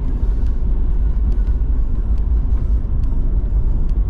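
A car cruising along a road, heard from inside the cabin: a steady low rumble of engine and tyre noise.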